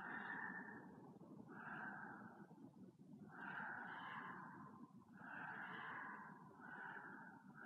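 A person breathing in a steady rhythm, about one breath every second and a half, each a soft rushing swell, over a faint steady background hiss.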